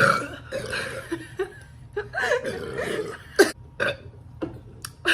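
A woman burping: a loud, drawn-out burp right at the start, another long burp with a wavering pitch about two seconds in, and a few short, sharp sounds in the second half.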